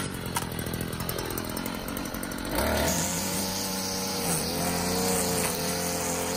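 Motor of a garden power tool running with a steady buzz. About two and a half seconds in it changes to a louder, steadier running note.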